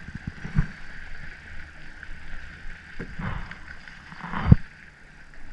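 A few knocks and bumps against a kayak, the loudest about four and a half seconds in, with a steady high drone underneath.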